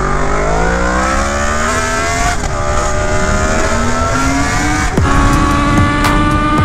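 Yamaha MT-series motorcycle engine accelerating hard, its pitch climbing, dropping at an upshift about two seconds in, and climbing again, with wind rush over the helmet microphone. About five seconds in it gives way to another motorcycle engine running at a steady, slowly rising pitch at highway speed.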